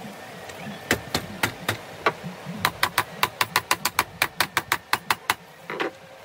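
Sharp plastic clicks and knocks as a baby tricycle's seat is worked into place by hand: a few separate clicks, then a quick even run of about five a second, and a softer knock near the end.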